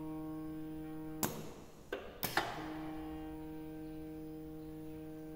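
Conveyor drive motor of a pneumatic sorting station running with a steady hum. It stops about a second in while the pneumatic cylinders and valves fire four sharp clacks, then starts up again a little over halfway through.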